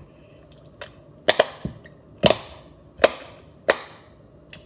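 Bubbles of frozen silicone pop-it fidget toys being pressed through, making about six sharp pops at irregular intervals.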